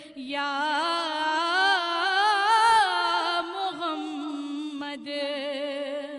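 A woman singing a naat as a solo voice: long held notes with wavering ornaments. The line climbs and swells to its loudest in the middle, then settles back down onto a long held note at the end.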